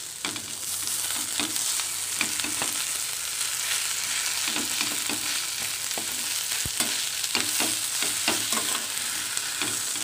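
A perforated steel skimmer ladle mashing and stirring boiled potatoes in a stainless steel kadai, with irregular scrapes and taps of metal on the pan. Under it runs a steady sizzle of the vegetables frying in oil.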